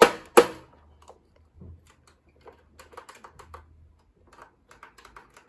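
Two sharp plastic clicks about half a second apart near the start, then faint scattered ticks, from a computer monitor's power button being pressed repeatedly. The monitor is dead and does not turn on.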